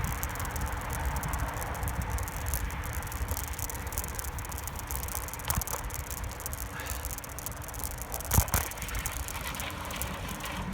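Steady low rumble of freeway traffic and wind on the microphone while moving along a trail bridge over the highway, with scattered light rattling clicks and a sharper knock about eight seconds in.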